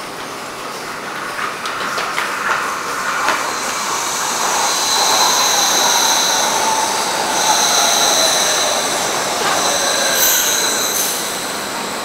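Metro train pulling into an underground station and braking. A rising rumble with high-pitched wheel squeal comes in, then a whine falls in pitch as the train slows.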